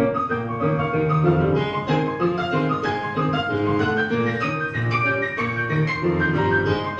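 Instrumental music led by piano, a busy run of notes moving continuously.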